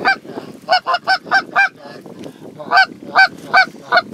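Canada geese honking: a single honk, then a quick run of about five honks a second in, then four more evenly spaced honks near the end, over a low background murmur.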